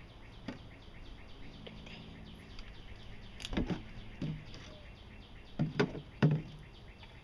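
A plastic jug knocking against boards on a scrap wood pile: several sharp knocks in the second half, two close together near 6 seconds. Birds chirp faintly in the background.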